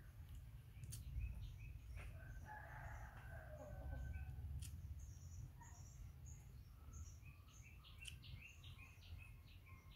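A rooster crowing once, faintly, about two and a half seconds in and lasting about two seconds, followed by short high bird chirps.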